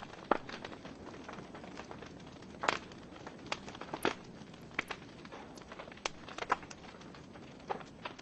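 Wood fire in a fireplace crackling: sharp irregular pops from the burning logs over a steady low hiss, with louder pops about a third of a second in, near the middle, and a few more after.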